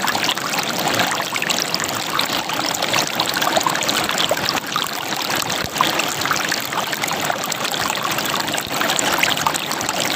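River water gurgling and splashing over rocks, a steady busy babble with many small splashes.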